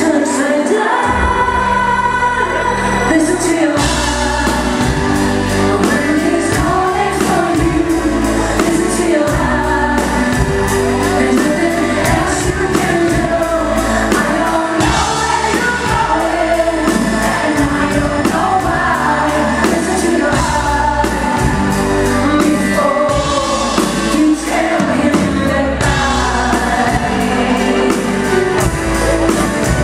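Live rock band playing a power ballad, with a woman singing lead over drums, bass and keyboards; the bass comes in about a second in.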